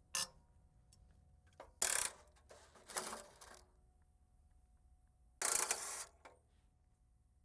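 Metal hand tools, a socket wrench and breaker bar, clicking and clanking in several short bursts as stubborn thermostat-housing bolts are worked loose.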